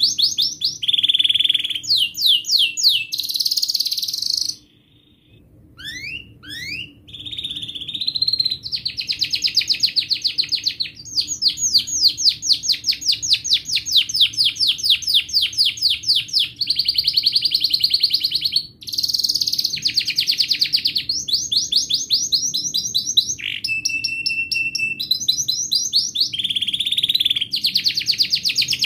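Domestic canary singing a long, unbroken song of rapid repeated trills and rolls, switching from one trill to the next every second or two, with a brief pause about five seconds in.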